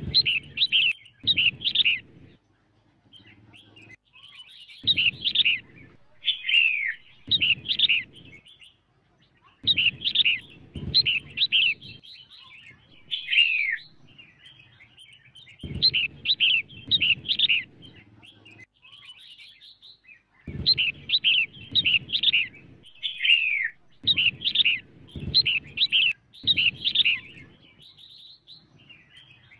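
Red-whiskered bulbul calling, a female's calls of the kind used to rouse males. Bouts of quick, sharp, down-slurred chirping notes, each bout a second or two long, come every few seconds with short pauses between.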